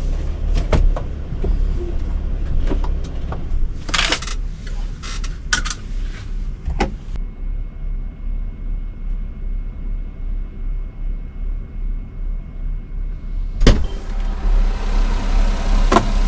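Sprinter van running, a steady low rumble with scattered clicks and knocks. A single loud sharp thump comes near the end.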